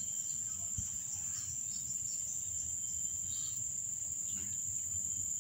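Crickets chirring in a steady, unbroken high-pitched chorus. There is a brief low knock about a second in.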